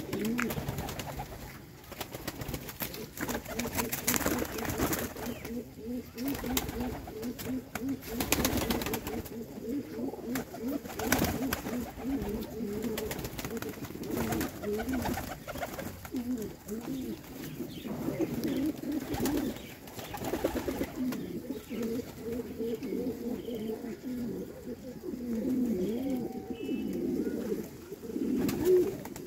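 A flock of fancy pigeons cooing, many low wavering coos overlapping without a break, with a few brief sharp rustles or flutters among them.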